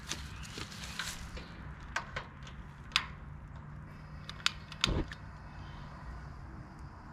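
Sharp clicks of a long-reach utility lighter and the burner knobs of a propane camp stove as the burners are lit, a handful of separate clicks with a dull thump about five seconds in.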